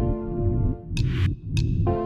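Background music: held synthesizer chords over a steady, pulsing bass beat, with a snare-like hit about a second in.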